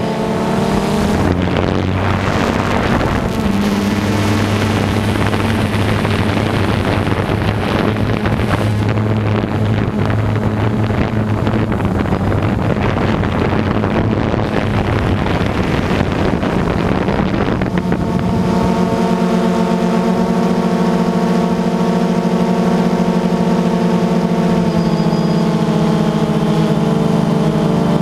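Engine of harvest machinery running steadily under load. About two-thirds of the way through, the sound changes to a smoother, steadier hum with a clear set of higher tones.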